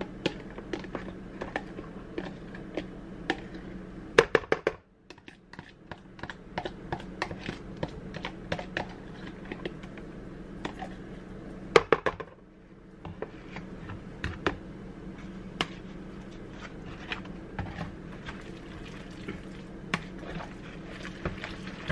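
A spoon clicking and scraping against plastic bowls as sauce is scraped out of its container and stirred into pasta, with frequent light ticks, two louder clusters of knocks about 4 and 12 seconds in, and a steady low hum underneath.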